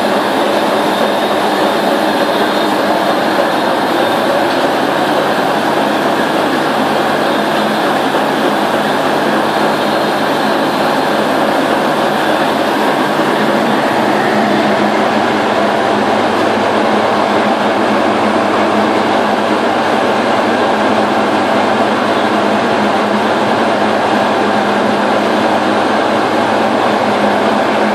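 Webflex web press running at a steady speed, giving a constant, even mechanical noise as the paper web unwinds through the rollers.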